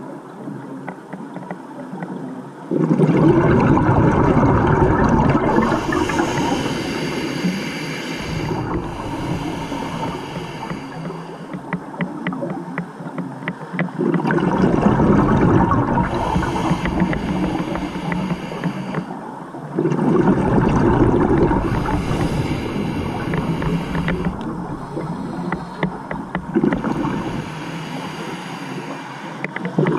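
Scuba diver breathing through a regulator underwater: exhaled bubbles gurgle out in four long bursts a few seconds apart, with quieter hiss between them.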